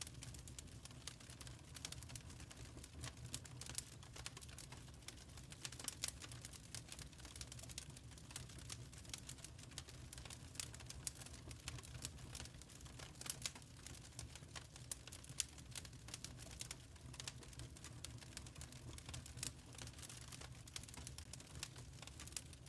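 Wood fire in a fireplace crackling, with many small irregular pops and ticks from the burning logs over a low steady rumble.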